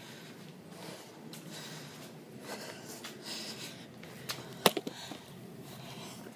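A man breathing hard through his nose while a phone is handled and rustles against him. About three-quarters through comes a sharp knock with two smaller ticks after it, as the phone is set down on the concrete floor.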